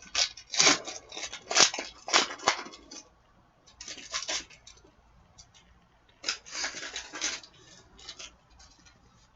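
A trading card pack's wrapper being torn and crinkled open in several short rustling bursts, then softer rubbing as the cards are handled.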